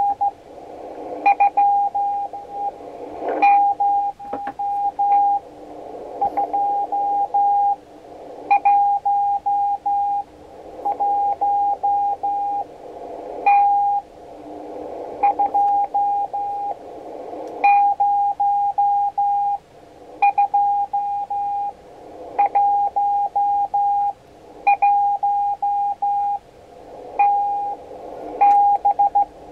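Morse code (CW) received on a Tecsun PL-330 shortwave receiver: a single steady-pitched tone keyed in short dot-and-dash groups about every two seconds, the other station sending his SKCC number. Band hiss swells up between the groups as the receiver's automatic gain control raises the gain.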